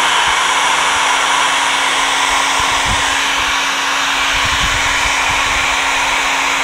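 Handheld hair dryer running steadily, an even rush of air with a constant hum, heating the adhesive around an iPad 2's screen to soften it. A few soft low knocks of handling in the middle.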